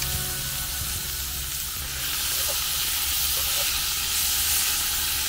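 Meat sizzling in a frying pan on a portable gas camping stove: a steady hiss that grows louder about two seconds in, over a low steady rumble.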